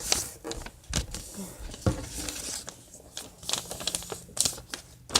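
A sheet of paper rustling and crinkling as it is handled and folded, in a string of irregular crackles and scrapes.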